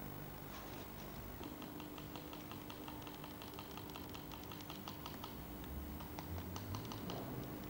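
A rapid run of light clicks, about six a second, over a faint steady hum.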